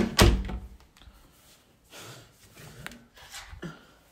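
A door pushed shut: a sharp click and a heavy thud right at the start, then faint handling rustles and a few light taps.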